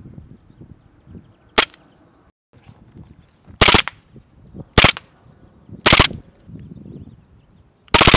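KWA M93R gas blowback airsoft pistol firing: a single shot, then three three-round bursts about a second apart, then a full-auto string of rapid, evenly spaced shots starting just before the end.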